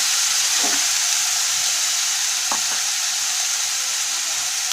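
Spice masala of chopped onion, green chillies and ground pastes sizzling steadily in hot oil in a karahi as it is fried down (koshano), the first stage of a Bengali curry. A wooden spatula stirs and scrapes the pan briefly a couple of times.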